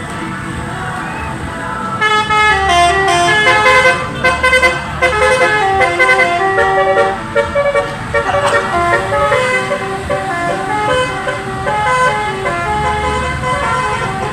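Bus basuri horn, a multi-tone 'telolet' air horn, playing a tune. A run of stepped, held notes starts about two seconds in and carries on loudly to the end.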